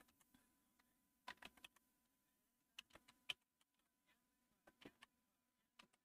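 Faint computer keyboard keystrokes, typed in short runs of a few keys with pauses between.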